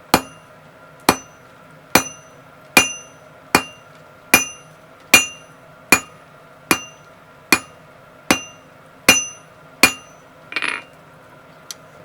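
Blacksmith's hammer flattening a 15 mm round steel bar on the anvil: thirteen even blows, about one every 0.8 seconds, each with a short metallic ring. A brief rasping noise follows near the end.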